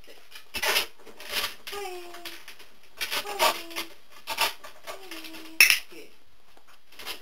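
Homemade wobble board rocking under a dog as it shifts and sits, giving irregular rubbing and scraping noises. A few short pitched tones and one sharp click about five and a half seconds in, the loudest moment.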